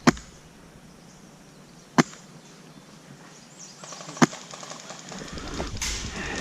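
An airsoft gun fires three single sharp shots, roughly two seconds apart, near the start, about two seconds in, and just past four seconds. Rustling movement follows near the end.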